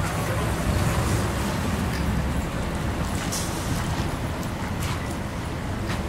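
Wind buffeting the microphone over a steady rumble of traffic on wet pavement, with a few brief hissy spatters.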